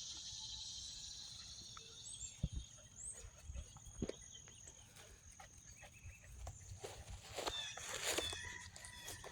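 Faint outdoor ambience: insects buzzing high and steadily, a few soft thumps, and short animal calls in the last couple of seconds.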